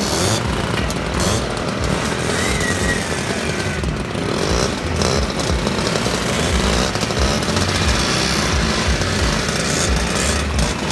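Small engines of Vespa scooters and Piaggio Ape three-wheelers running together, with a few short revs as the scooters ride off.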